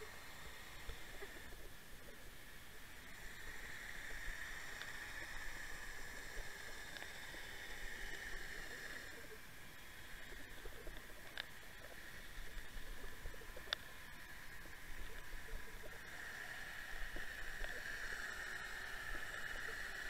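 Water rushing past an underwater camera's housing as the rig is towed along the bottom: a steady muffled hiss that swells and fades twice, with two sharp clicks a couple of seconds apart near the middle.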